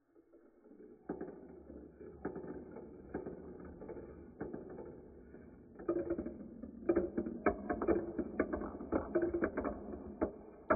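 Balls of a brick-built toy marble run rolling down plastic chutes: a steady rolling rumble under quick clicks and clacks as they pass track joins and knock into each other, growing busier and louder from about six seconds in as more balls arrive and queue up.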